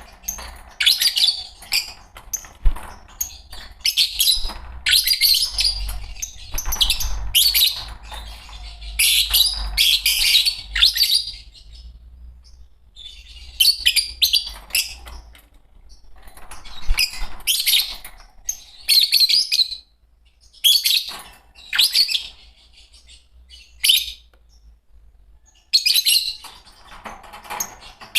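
A pair of Fischer's lovebirds chirping in rapid bursts of shrill, high calls, with short pauses between the bursts. The calls thin out to scattered single chirps for a few seconds about two-thirds of the way through.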